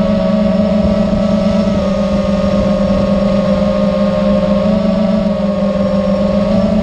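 TBS Mr Steele 2345Kv brushless drone motor spinning at a steady speed, giving a loud, even whine with slight small shifts in pitch over a rough rattly noise. The owner hears the motor's sound as bad and suspects something is wrong with it.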